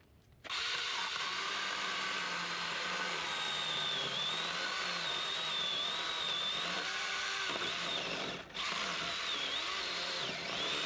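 Power saw cutting a piece of firewood, its motor whine wavering in pitch as it works under load. It starts about half a second in, cuts out briefly near the end, then runs again. The saw has just been left to cool down between cuts.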